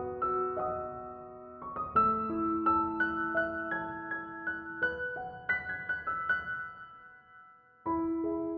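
Background piano music: a slow, gentle melody of single sustained notes, fading out about seven seconds in and starting again just before the end.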